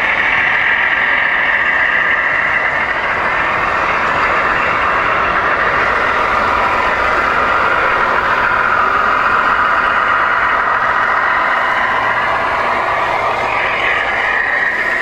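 Radio-controlled model trucks running, heard as a loud, steady engine-like din.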